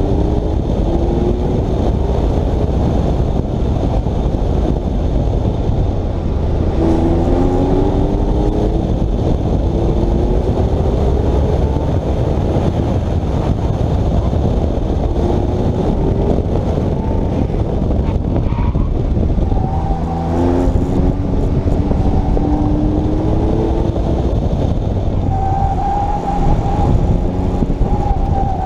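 Porsche 997 911's flat-six engine revving up and easing off again and again as the car is driven hard through an autocross course, over heavy wind rumble on a camera mounted outside the car. Near the end a steady high squeal from the tyres sets in.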